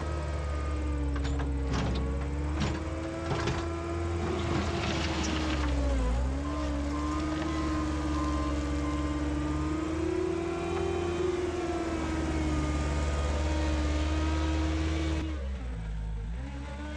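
Heavy equipment engine running steadily, its pitch sagging briefly about six seconds in as it takes load. A few sharp knocks come in the first few seconds, consistent with the bucket working gravel.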